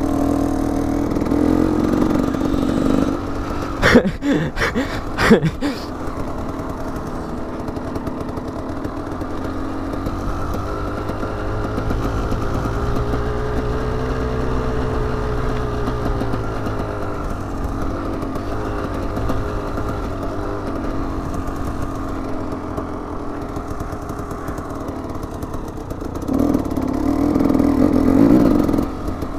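Dirt bike engine running under the rider, heard from the saddle. The revs rise and fall in a slow arc midway, with a few sharp knocks about four to five seconds in and a louder burst of throttle near the end.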